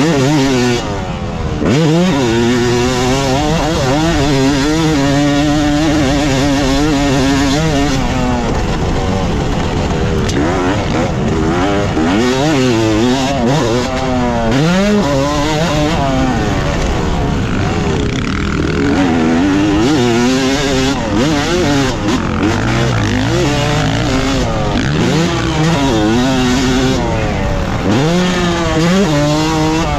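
Yamaha YZ250 two-stroke single-cylinder motocross engine being ridden hard. It revs up and falls back again and again, the pitch climbing and dropping with the throttle and gear changes.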